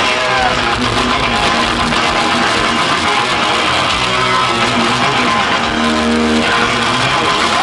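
Heavy metal band playing live through an arena sound system: distorted electric guitars, bass guitar and drums, loud and unbroken.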